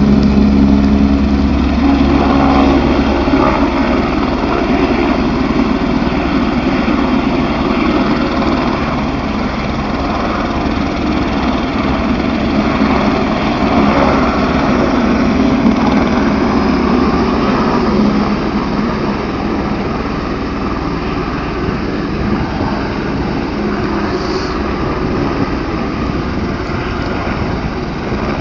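Light aircraft engine running loud and steady, with a constant rushing noise over it. Its low hum is strongest for the first few seconds, then eases a little.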